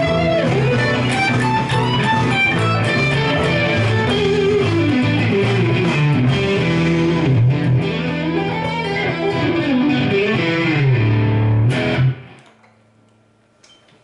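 Stratocaster-style electric guitar played through an amplifier, bluesy lead lines over sustained low notes. The playing stops abruptly about twelve seconds in, leaving a faint amp hum.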